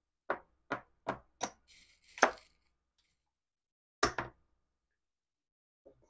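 Gaming chips clicking as they are counted out and set down to pay a bet: four quick sharp clicks, then a louder clack about two seconds in and another about four seconds in.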